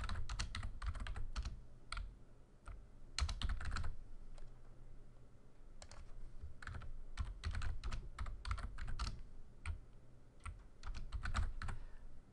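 Typing on a computer keyboard: quick runs of keystrokes in several short bursts, with brief pauses between them.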